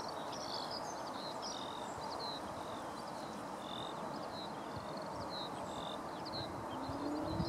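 Small birds chirping in short, scattered calls over a steady background hum, with a low rising whine near the end.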